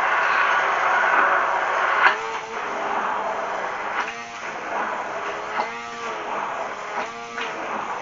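Immersion stick blender running in a mason jar, emulsifying homemade mayonnaise. A loud, steady whir gives way to a sharp click about two seconds in, then a quieter run with a short wavering tone that recurs every second or so.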